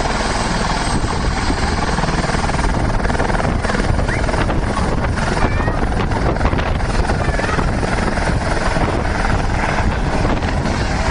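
A light helicopter lifting off close by, its engine and main rotor running loud and steady.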